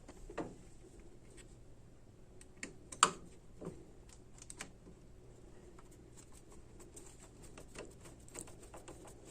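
Light, irregular clicks and taps of small metal parts being handled while screws are fitted into a metal power strip housing, with one sharper click about three seconds in.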